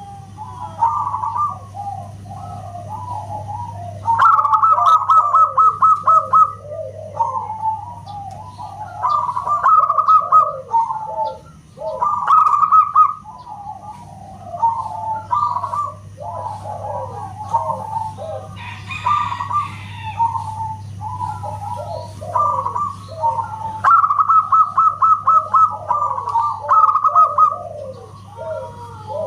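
Zebra doves (perkutut) cooing without pause, each phrase opening with a quick run of short repeated notes and falling into lower rolling coos. A steady low hum runs underneath.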